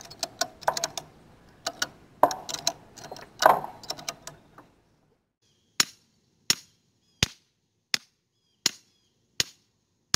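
A ratchet strap's ratchet being worked, giving irregular clusters of sharp clicks for the first few seconds. Then a hammer strikes the top of a steel fence T-post about once every 0.7 seconds, each blow sharp and ringing slightly.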